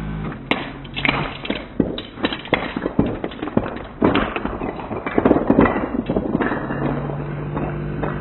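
Wooden Jenga blocks clattering and knocking onto a hardwood floor as a block tower collapses: a rapid, irregular run of sharp knocks and thuds over several seconds, thickest about four to six seconds in.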